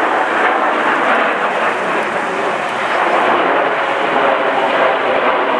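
Loud, steady jet-engine rush from the Red Arrows' formation of BAE Hawk T1 jets flying over.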